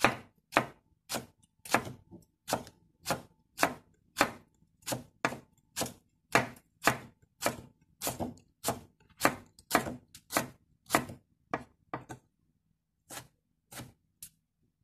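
Kitchen knife slicing spring onions on a wooden chopping board: steady chops about two a second, thinning to a few spaced strokes near the end.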